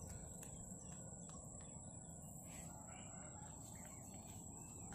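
Quiet outdoor background with a steady high-pitched thin tone and a few faint bird calls.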